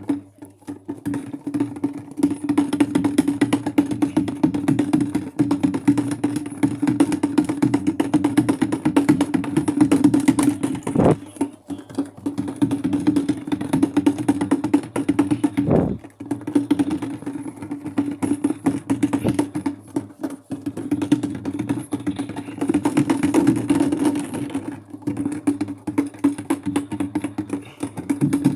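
Maytag washing machine running on its delicate cycle: a steady motor hum with a fast, dense clatter, easing off briefly every four to five seconds as the drum or agitator changes direction.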